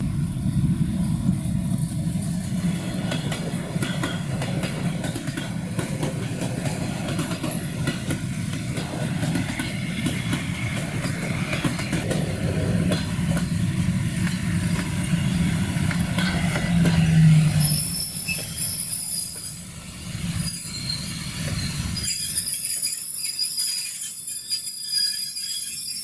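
Freight train hauled by an electric locomotive passing close by at speed: a heavy, steady rail rumble with a brief low tone near two-thirds of the way through, then the rumble thins out and the wagons' wheels squeal in thin high tones over the last few seconds.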